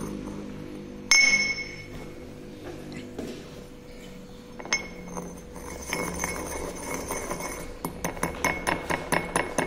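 Glass pestle striking and grinding in a porcelain mortar. A loud ringing clink comes about a second in and a lighter one near the middle, then a quick run of short scraping knocks, about four a second, as the powder is ground near the end.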